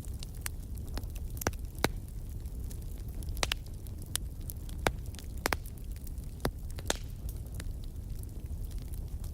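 Wood fire crackling in a fireplace: a low steady rumble of flames with sharp pops at irregular moments, the loudest a little under two seconds in.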